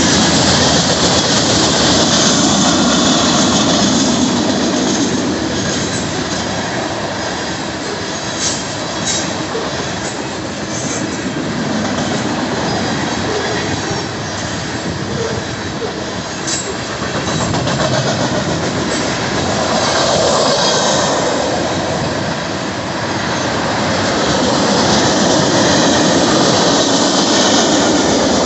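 Freight train cars (covered hoppers and tank cars) rolling past at close range: a steady, loud rumble and rattle of steel wheels on the rails that swells and eases as the cars go by, with a few brief sharp clicks around the middle.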